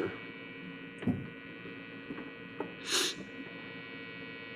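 Steady electrical mains hum, with a soft low thump about a second in and a short breathy hiss about three seconds in.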